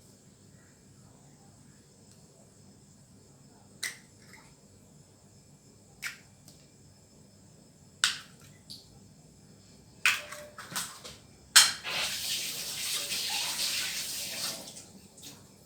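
Kitchen utensils handled with scattered sharp clicks and knocks. Then comes a loud click, followed by about three seconds of steady rushing hiss that stops shortly before the end.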